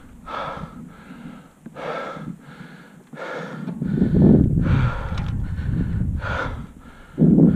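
A mountain-bike rider breathing hard and fast from the effort of climbing, short heavy breaths about once a second. Under them is a low rumble from the bike rolling over the rough dirt trail, loudest past the middle and again near the end.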